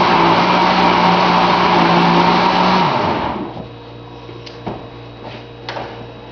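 Countertop blender motor running at speed, mixing a thick corn cake batter to stir in the baking powder, then switched off about three seconds in and spinning down. A few light clicks and knocks follow.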